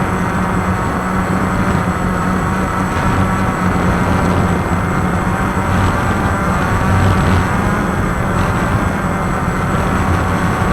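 Quadcopter motors and propellers of a Walkera QR X350 running steadily in flight, a constant low hum with a dense whirring noise over it.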